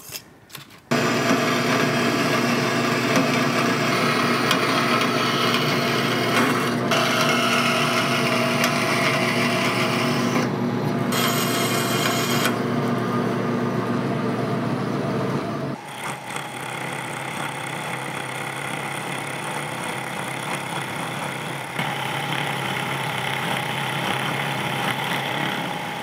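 Metal-cutting band saw starting about a second in and running with a steady motor hum as the blade cuts through a steel plate, the cutting noise changing as the cut goes on. Near the middle the saw stops and a milling machine takes over, its end mill cutting the plate.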